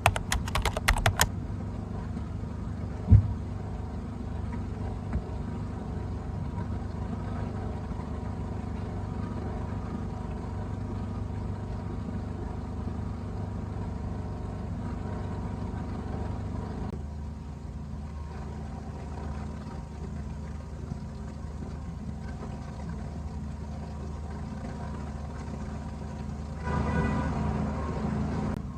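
Steady low rumble of a motor vehicle running, with a few clicks at the start and a sharp knock about three seconds in. The rumble eases about halfway through and swells again briefly near the end.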